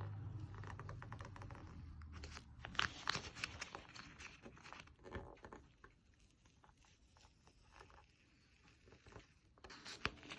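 Faint scratchy rubbing and crinkling as a vinyl emblem decal is pressed and smoothed onto a plastic air dam, with irregular small clicks. It runs for about five seconds, then goes nearly quiet, with a few clicks near the end.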